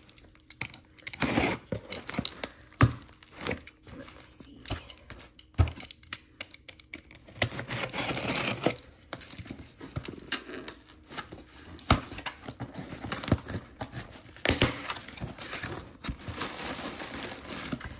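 Cardboard shipping box being cut open and unpacked by hand: packing tape slit and torn, flaps and contents handled with crinkling and scattered knocks. Longer tearing, rustling stretches come about a second in, around eight seconds in, and around fifteen seconds in.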